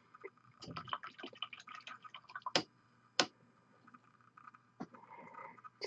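A quick run of small clicks and taps, then two sharper clicks about half a second apart, followed by a few faint taps: small objects being handled on a miniature-painting desk.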